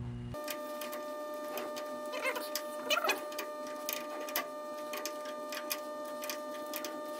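Irregular light metal clicks and taps from hand work on the pipe fittings of a diesel starting air line, as a nut is loosened and the line moved, over a steady hum with several held tones. A few louder clicks come about two to three seconds in.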